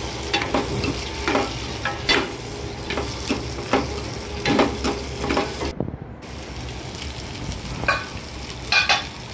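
A steel spoon stirs and scrapes potatoes, tomatoes and spices around a stainless steel pan while they sauté with a light sizzle. The scrapes come about two a second, break off briefly around six seconds in, and two more follow near the end.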